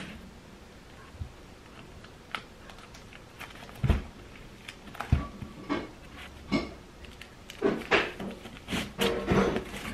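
Vinyl records in their sleeves being flipped through on a wooden shelf: scattered light clicks and knocks of the jackets against each other and the shelf. There are two dull thumps about four and five seconds in, and the handling turns busier from about seven and a half seconds.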